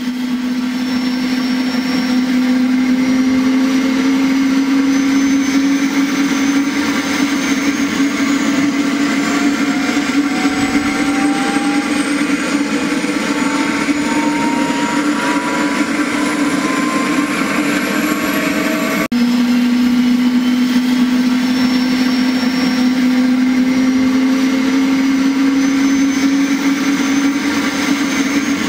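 Small DC toy motor spinning a plastic propeller, a steady whirring hum with a brief break about two-thirds through.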